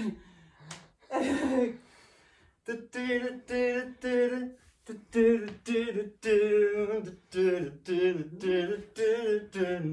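A person sings a tune in short notes with held pitches, about two to three notes a second, starting about three seconds in. A short breathy sound comes about a second in.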